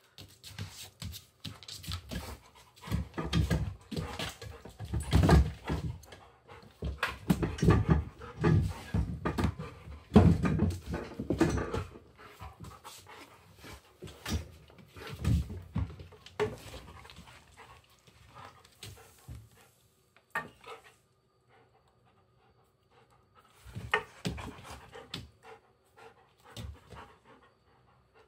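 German Shepherd panting close to the microphone in quick, rhythmic breaths, heaviest through the first twelve seconds or so, then sparser, with a short burst again near the end.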